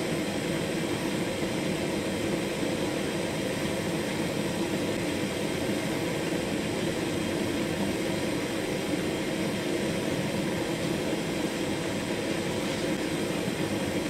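Gas torch burning with a steady rushing hiss, its jet aimed at an aluminium can.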